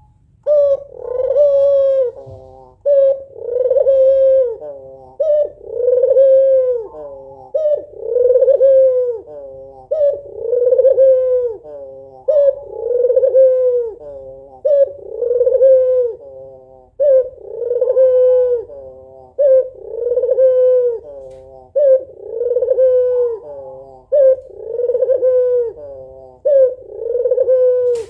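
Female white barbary dove (puter putih) cooing over and over, about a dozen times, one every two and a half seconds or so; each coo is a short note followed by a long, arched, falling note. It is the female's calling coo, used to draw a male into answering.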